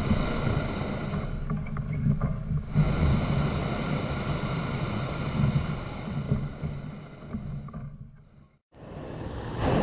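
Hot air balloon propane burner firing overhead in two blasts, a short one and then a longer one of several seconds, with a deep rumble under the roar. The sound fades out near the end.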